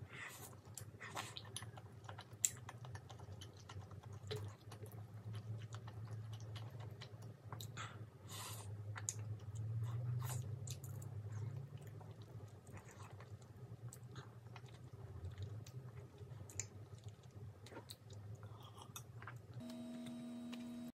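Close-up chewing and biting of chewy rice cakes in spicy sauce, with soft wet mouth sounds and scattered small clicks, over a faint steady low hum. About a second before the end, a steady hum with several pitches sets in.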